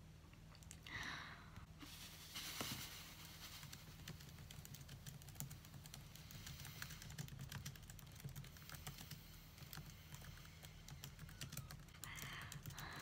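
Faint, irregular light clicking and tapping, like fingers on keys or a small object being handled, with a sniffly breath about a second in and another near the end.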